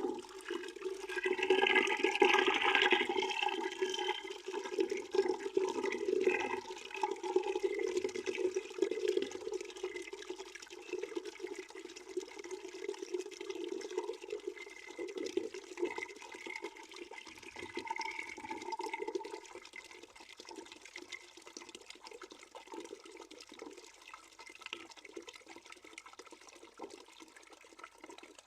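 Water running steadily into a bucket, a continuous rushing splash that is louder in the first few seconds and then gradually softens.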